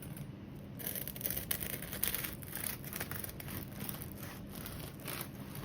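A knife sawing back and forth through a freshly baked 100% whole wheat sourdough Pullman loaf: a quick run of short, scratchy strokes starting about a second in.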